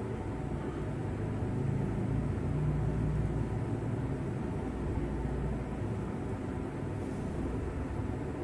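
Steady low background rumble, swelling slightly a couple of seconds in.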